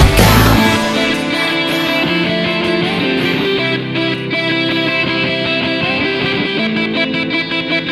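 Background music: a guitar-led song. Its heavy low end drops out about half a second in, leaving a lighter guitar part.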